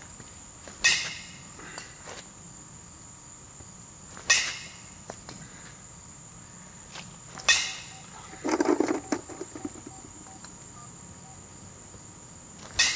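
Baseball bat hitting soft-tossed balls, four sharp cracks about three to four seconds apart, each with a brief ring. A short low sound comes a second after the third hit.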